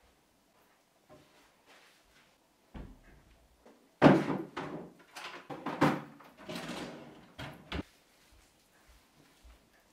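Kitchen cupboard doors opening and shutting, with things knocking and clattering inside, over about four seconds; the first bang is the loudest.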